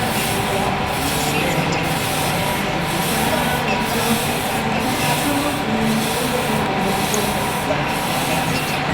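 Model train running on its track: a steady rubbing, rushing noise that pulses about once a second.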